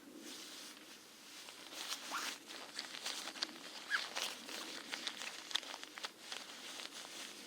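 Small wood fire crackling, with irregular sharp pops and snaps.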